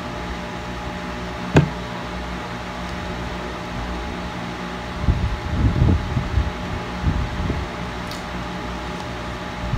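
Electric stand fan running with a steady hum and whoosh. A single sharp click about a second and a half in, and a few low muffled knocks about halfway through.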